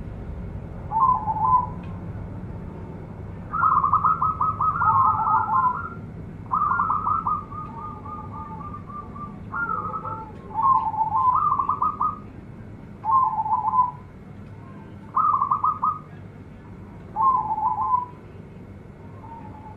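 Zebra dove (perkutut) cooing: a run of rapid, stuttering notes, repeated as about eight phrases, several short and a few of two or three seconds.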